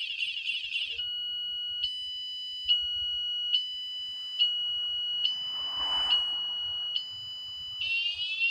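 A wsdcam 113 dB vibration-sensor motorcycle alarm sounds its full alarm, triggered by the bike being moved. It is extremely loud and cycles through siren patterns: a fast warble first, then a two-tone pattern switching back and forth a little faster than once a second, then rapid rising whoops near the end.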